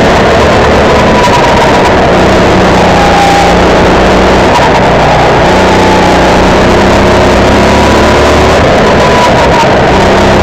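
Honda GX270 single-cylinder four-stroke engine of a Sodi RT8 rental kart, running hard under load and heard loud from the driver's seat. Its pitch holds fairly steady, dipping slightly a couple of times as the kart goes through the corners.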